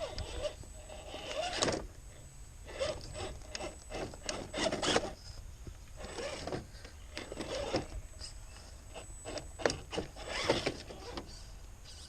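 Scale RC crawler's tyres scraping and rubbing over rough ground in irregular strokes with short pauses between them.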